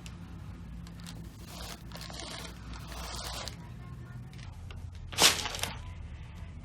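Soft rustling and scraping of handled material, with one loud, brief rustle about five seconds in.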